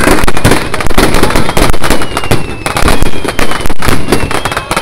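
A fireworks barrage: aerial shells bursting one on top of another with crackle, many sharp bangs each second without a break, very loud.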